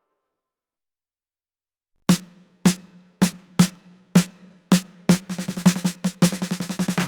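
Silent for about two seconds, then music of single drum hits about twice a second that quicken into a snare drum roll.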